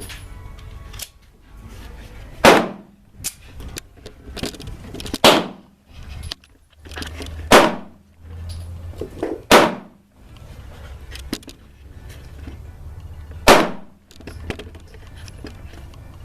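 North American Arms Anti-Venom .22 Magnum mini revolver fired five times at uneven intervals of two to four seconds, each shot sharp with a short ring after it, with fainter clicks between shots.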